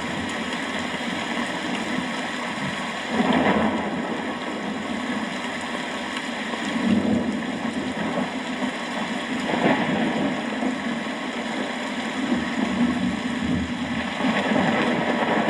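Steady rain with thunder rumbling, swelling louder several times.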